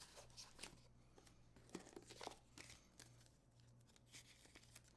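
Faint rustling and scattered small clicks of a red dot sight's cardboard product box being handled and opened, over a low steady hum.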